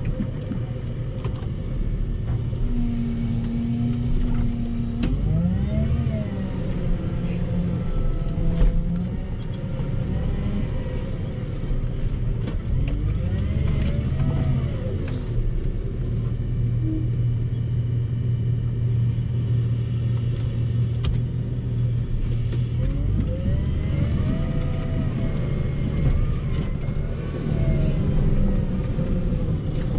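Volvo L60H wheel loader's diesel engine running under load, heard from inside the cab. The engine speed rises and falls a few times while it pushes snow.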